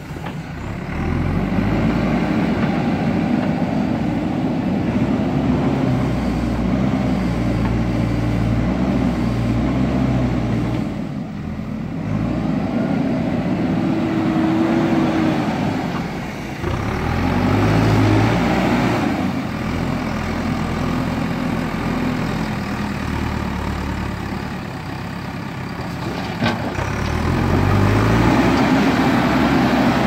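JCB 3DX backhoe loader's diesel engine running under load as the front bucket digs into the earth bank. It revs up several times as the bucket works and eases off in between, with a short lull about eleven seconds in.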